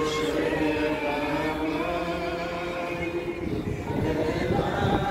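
A small group of people singing together, with long held notes, and traffic noise low underneath.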